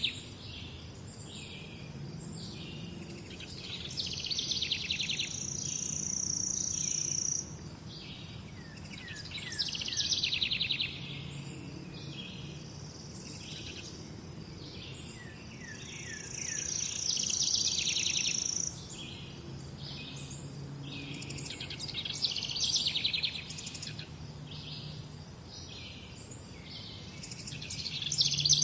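Morning birdsong: several birds calling in short repeated chirps and rapid trills, with a high sustained trill held for two to three seconds twice, over a faint low background hum.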